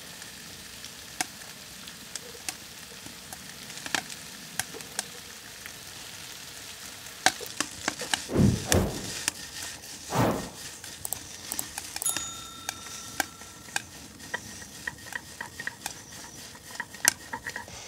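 Homemade noodles and vegetables sizzling in a wok as they are stirred, with many sharp clicks of the utensil against the wok. Two dull thumps about eight and ten seconds in are the loudest sounds.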